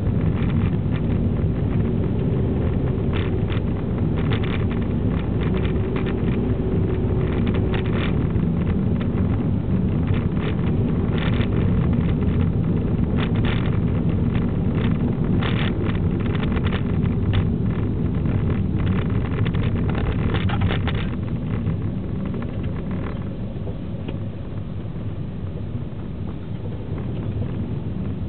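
Cabin sound of a 2009 Vauxhall Astra 1.8 four-cylinder petrol automatic driving along a narrow lane: a steady rumble of engine and tyres on the road, with brief bursts of noise scattered through the first two-thirds. It grows a little quieter after about twenty seconds.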